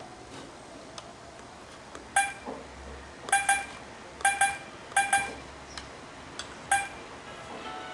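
Touch-screen key beeps from a car multimedia head unit as a stylus taps its on-screen buttons: about eight short, pitched beeps, several in quick pairs, starting about two seconds in.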